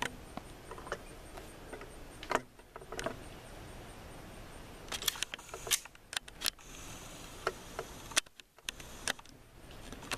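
Scattered quiet metallic clicks and clacks of a semi-automatic pistol being handled between strings of fire, with a quick cluster of clicks about halfway through.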